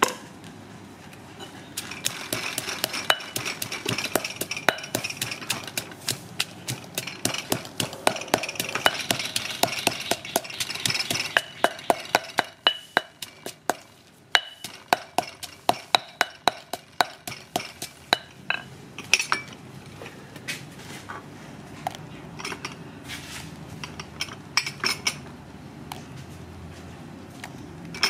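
Stone pestle pounding sliced lemongrass in a granite mortar: rapid, repeated knocks of stone on stone, about three or four a second, thinning out and getting quieter in the last third.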